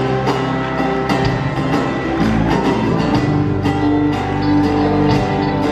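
A live band playing an instrumental passage with a steady beat, guitar and held melody notes, heard from the audience in a large theatre.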